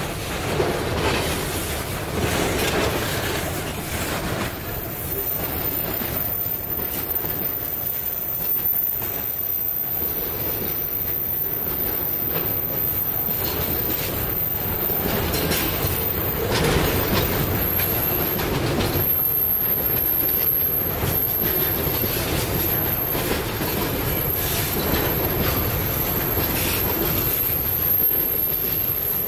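Freight train hauled by diesel locomotives rolling past, its wheels clicking over the rail joints over a steady rumble.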